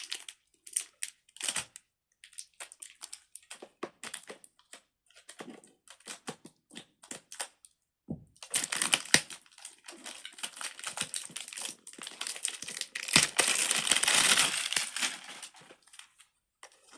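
Handling of a small fidget toy: a string of light plastic clicks and taps, then, about halfway through, several seconds of dense crinkling of packaging.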